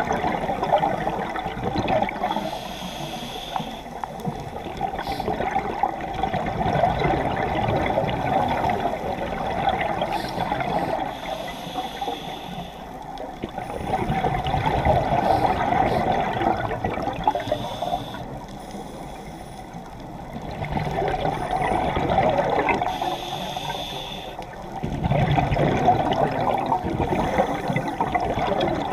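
Scuba diver's breathing through a regulator, heard underwater: gurgling bursts of exhaled bubbles that swell and fade every few seconds.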